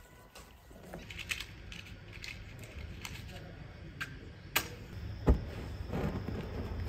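Clicks and rattles of a handheld propane gas torch being handled, a sharp pop about five seconds in as it lights, then the flame starting up with a low rumble.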